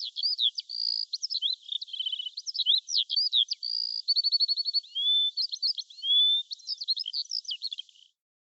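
A small songbird singing a long, varied song of quick chirps, rapid trills and short rising whistles, which stops abruptly near the end.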